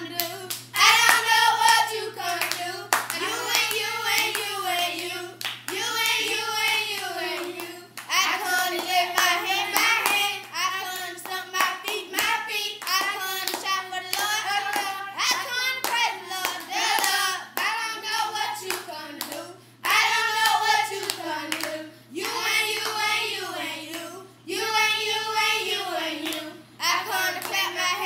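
Three children singing a song together, clapping their hands along with it.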